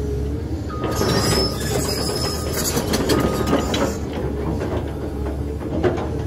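Caterpillar 320 excavator's diesel engine running steadily under load while the boom and bucket move; from about a second in, a loud spell of hiss with metallic squealing and clanking from the working hydraulics and bucket linkage, easing off around four seconds, with a few sharp clanks near the end.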